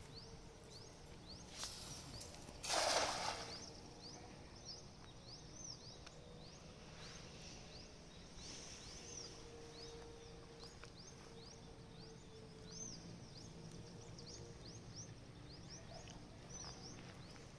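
A cast net thrown into a small river lands with a splash about three seconds in, after a softer swish. Short rising bird chirps repeat several times a second throughout, over faint outdoor ambience.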